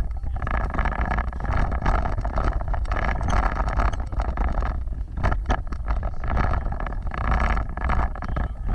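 Vehicle driving off-road, a steady rumble with knocks and rattles, a cluster of them about five seconds in.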